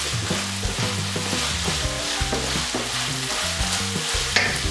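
Minced beef with onions and pointed peppers sizzling steadily in a frying pan on high heat, stirred and turned with a wooden spoon, with a short scrape of the spoon near the end.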